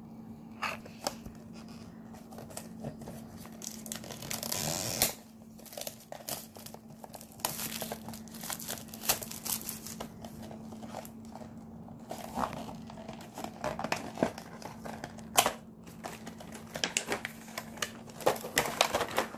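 Clear plastic wrap crinkling and rustling as it is handled, with a small cardboard box being moved and its flaps opened: irregular crackles and clicks, with a longer stretch of rustling about four to five seconds in.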